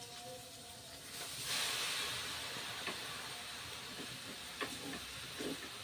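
A stir-fry of water spinach sizzling in a hot pan: a sudden loud hiss starts about a second in as something hits the hot oil, then settles into a steady sizzle with a few light clicks.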